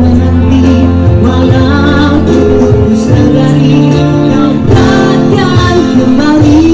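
Live acoustic guitar and electronic keyboard music, with a voice singing over it.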